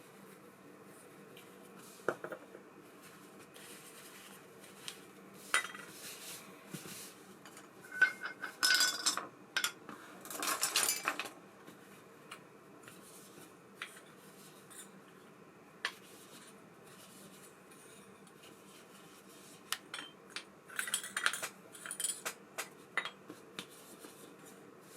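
Small metal parts of an Abu Ambassadeur 5500C baitcasting reel clinking and clicking as they are handled. Scattered single clicks, with two runs of busier clattering: one about a third of the way in and one near the end.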